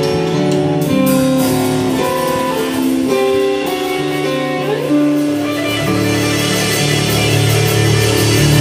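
Live rock band playing an instrumental passage: electric guitar lead with long held notes and a rising bend about four and a half seconds in, over bass guitar, drum kit and keyboard. The band grows fuller with more cymbal wash from about six seconds in.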